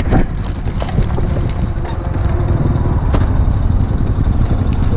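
Motorcycle engine running with a steady low rumble, wind on the microphone, and a few sharp knocks as the bike goes over rocky ground.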